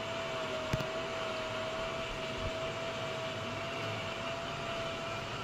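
Electric motor of a 150 kg swing gate opener's linear actuator running steadily as it drives the ram outward on the open stroke, a single even whine with one small click just under a second in.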